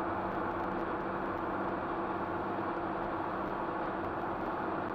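Steady road and engine noise of a moving car heard from inside its cabin, with a constant low hum.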